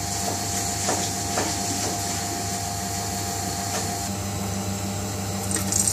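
Steady machine hum and hiss of a kitchen, with a few faint clicks.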